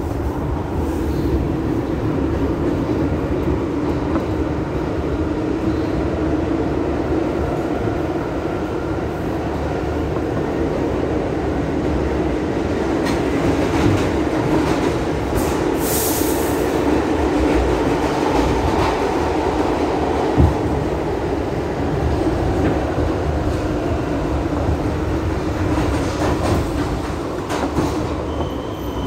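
Kawasaki R62 subway car running, a steady drone from its General Electric 1257E1 traction motors and wheels on the rails. A brief high-pitched wheel squeal comes a little past the middle, and a single sharp click follows a few seconds later.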